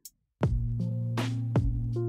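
Electronic background music with a drum-machine beat. It drops out for about a third of a second at the start, then comes back with drum hits over steady held synth notes.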